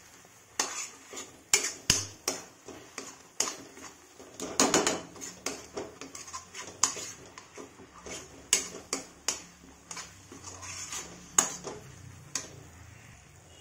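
Metal spatula scraping and clicking against a metal kadhai as a thick lentil paste is stirred, in irregular strokes with a longer scrape about four to five seconds in.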